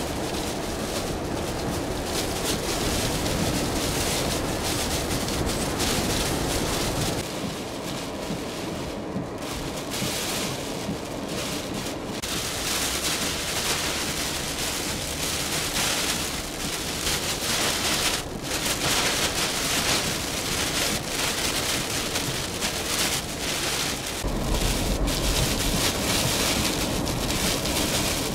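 Hurricane eyewall wind and heavy rain beating on a moving vehicle, heard from inside. It rises and falls in gusts.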